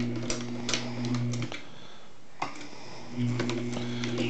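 MEC AutoMate drive motor running on reduced voltage from a variac: a low, steady hum for about a second and a half, stopping, then starting again about three seconds in for another second and a half. Sharp clicks of the reloading press mechanism come through the hum. At this low voltage the motor is laboring and slow to start, yet still cycling the press.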